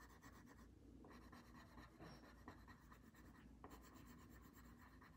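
Faint scratching of a coloured pencil shading on paper in short strokes, with brief pauses.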